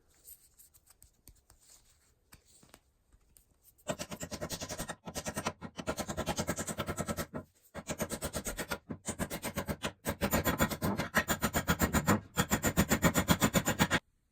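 Rapid back-and-forth hand strokes rubbing or abrading the axe, several strokes a second in runs with short pauses, starting about four seconds in after a few faint handling sounds.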